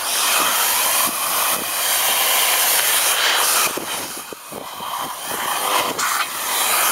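A loud, steady rushing hiss that eases off for a couple of seconds past the middle, with a few light knocks, and then comes back.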